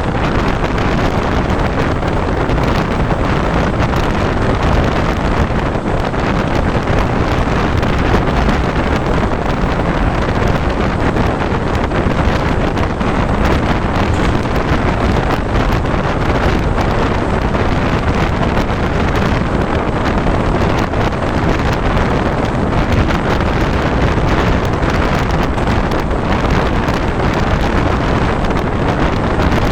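Steady, loud wind rushing over the microphone of someone riding a moving train, with the train's running noise underneath.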